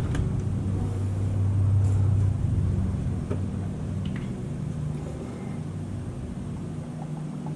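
Low engine rumble of a vehicle, swelling over the first couple of seconds and fading away by about five seconds in, with a few faint clicks.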